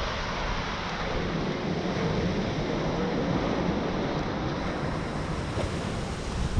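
Waves breaking and washing up a small sandy beach in a steady wash of surf, with wind rumbling on the microphone.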